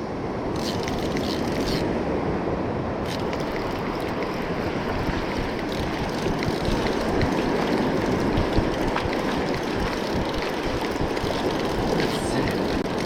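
Steady rush of surf washing onto the beach.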